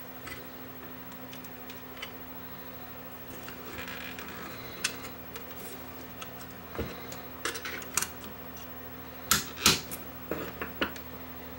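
Light clicks and taps of small parts being handled on a circuit board at its power-supply section, where the fuse is being changed. A few sharper clicks come in clusters in the second half, over a steady low hum.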